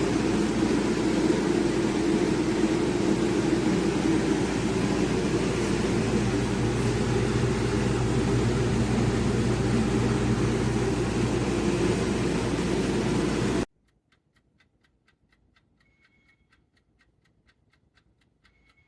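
Loud, steady rushing noise that cuts off suddenly near the end, leaving faint, rapid, even ticking at about five ticks a second.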